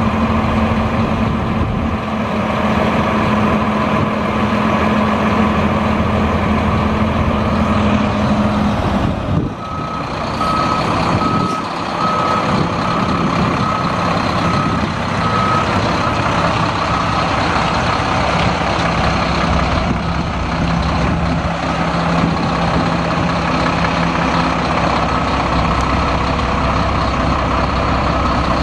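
Mack MP7 10.8-litre inline-six turbo diesel of a Mack Granite dump truck running steadily. About ten seconds in, the truck's backup alarm starts a series of evenly spaced beeps lasting about seven seconds, the sign that it is in reverse.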